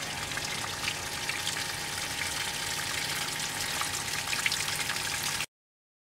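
Steady outdoor background noise: a soft hiss with faint scattered ticks and a low steady hum, cutting off suddenly about five and a half seconds in.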